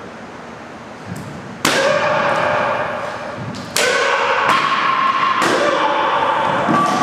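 Three taekwondo board breaks about two seconds apart, each a sudden sharp crack of a board struck by a kick or hand strike, together with a loud shout (kihap).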